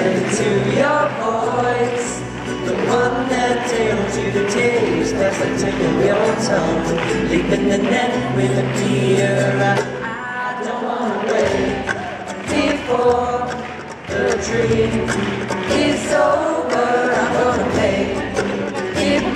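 A live acoustic pop-rock band: strummed acoustic guitar, ukulele, cello and upright bass, with several voices singing together in harmony.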